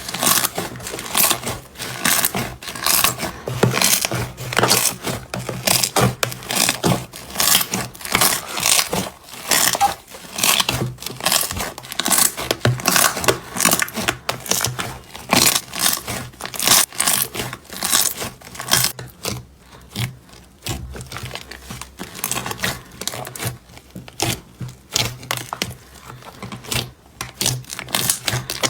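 Hands squishing and pressing slime, with a rapid run of crackles and pops that thins out for a few seconds about two-thirds of the way through.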